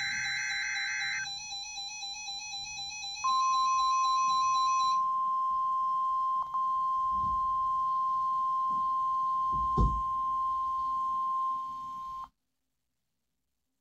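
NOAA Weather Radio Emergency Alert System weekly test. The last of the screechy SAME header data bursts ends about a second in. About two seconds later the steady 1050 Hz attention tone starts and holds for about nine seconds. Near the end it cuts off abruptly into dead air: the test has failed and the station has dropped off the air.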